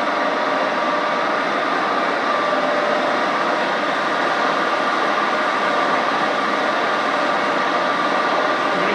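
Workshop machinery running: a steady mechanical hum and noise with a steady whine over it.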